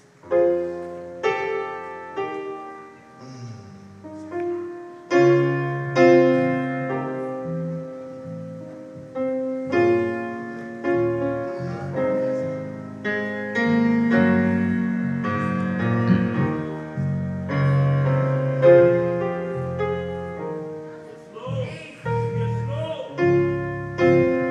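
Electronic stage keyboard played with a piano sound: slow chords over low bass notes, struck about once a second and left to ring out.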